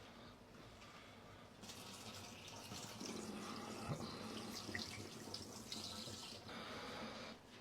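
Water running from a tap into a sink, starting about one and a half seconds in and stopping near the end.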